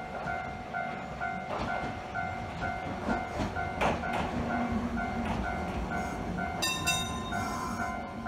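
A level-crossing warning bell clangs in an even rhythm, just under two strokes a second, as a 1928-built Hankai Tramway tram rolls in. The tram's wheels click over rail joints and its motor hum grows, and a brief high squeal comes near the end as it slows at the platform.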